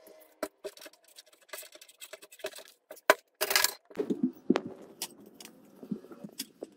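Hard plastic computer-case parts being handled and set down on a tabletop: a run of sharp clicks and knocks, the loudest about three seconds in, with a short rushing burst just after it.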